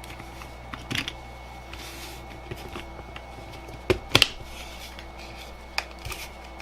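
Laptop battery's plastic casing and parts being handled and pressed together: a few sharp clicks and taps, the loudest pair about four seconds in, over a steady low electrical hum.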